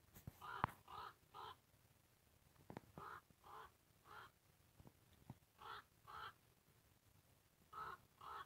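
A crow cawing faintly, in runs of two or three caws about half a second apart, a run every couple of seconds. A few sharp clicks early on and midway.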